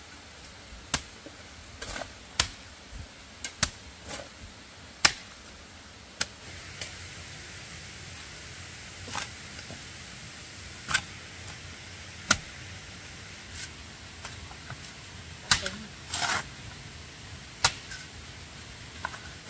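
A series of irregular sharp knocks, sometimes two in quick succession, spaced from half a second to a few seconds apart, over a steady hiss. About sixteen seconds in there is a short, rattling clatter.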